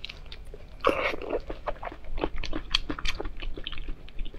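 Close-miked chewing and wet mouth sounds of someone eating soft, fatty braised pork belly: a run of short sticky smacking clicks, with a louder wet burst about a second in.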